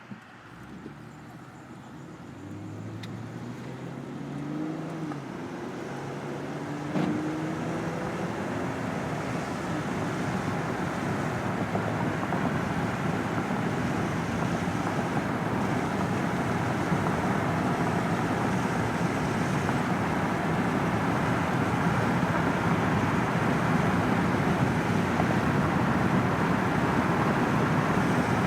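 Car driving and gathering speed: the engine's pitch rises in a few steps over the first several seconds, with a short knock about seven seconds in, then a steady rush of road and tyre noise grows louder.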